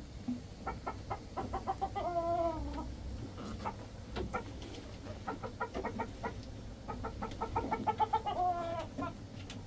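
Chickens clucking: runs of short, quick clucks, twice breaking into a drawn-out call, about two seconds in and again near the end.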